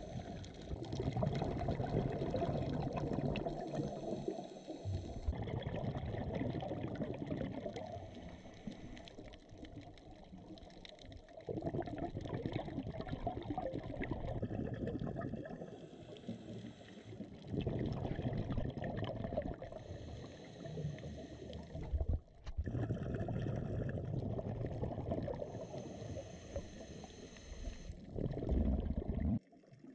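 Underwater sound of a scuba diver's regulator: gurgling rushes of exhaled bubbles that swell and fade every few seconds with the breathing.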